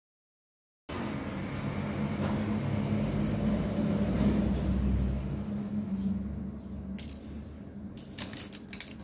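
Silence for about the first second, then a steady low hum. Near the end comes a quick run of short, sharp crackles as a hand lifts and breaks open a baked cheese pastry on crinkly baking paper.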